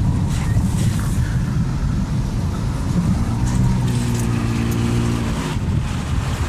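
Strong wind buffeting the microphone as a continuous low rumble. A steady low hum rises out of it for about two seconds near the middle.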